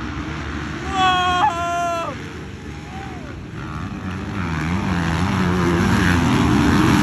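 Motocross dirt bike engines running on the track, a steady drone of several bikes, with one engine growing louder toward the end as it comes closer. A brief high-pitched wail stands out about a second in.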